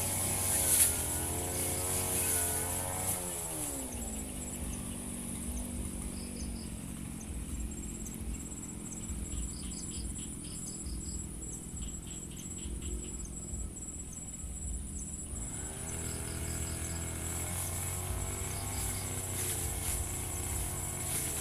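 Firman FGB 528 two-stroke brush cutter engine dropping from working revs to idle about three seconds in, idling steadily for about twelve seconds, then revving back up. Short high chirps come in small groups in the background during the idle.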